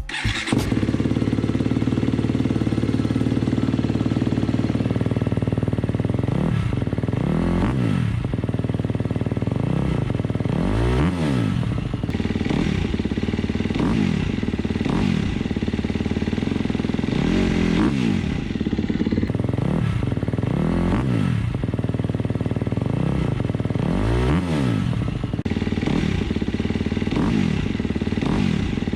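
2019 KTM 250 SX-F single-cylinder four-stroke dirt bike running through an FMF Factory 4.1 full exhaust: it idles, then from about six seconds in it is blipped repeatedly, with quick revs up and back down, often two at a time. Deep and really loud.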